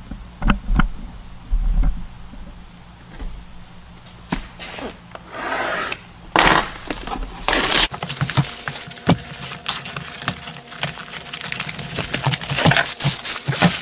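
A cardboard box of a wrench set being opened and its packaging handled by hand. Scattered knocks and taps come first, then a couple of short scraping sounds around the middle, then dense rustling and crinkling through the second half.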